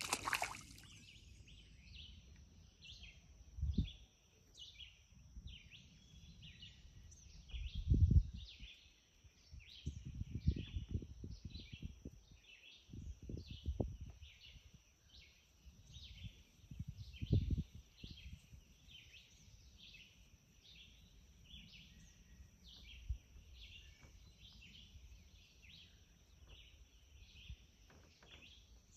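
Woodland wildlife chorus: short high chirps repeating about twice a second over a steady high-pitched drone. A few low thumps and rumbles sound against it, the strongest about eight and seventeen seconds in.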